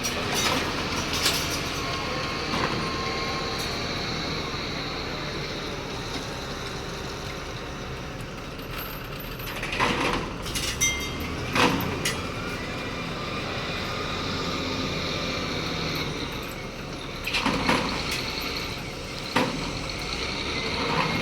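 Heavy diesel construction machinery running steadily with a high, even whine over the engine. Loud metal clanks and knocks come around ten seconds in and again a few seconds before the end.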